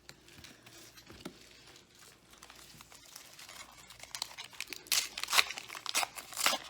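Plastic Pokémon card pack wrapper crinkling as it is handled and torn open, quiet at first and louder crackling in the last couple of seconds.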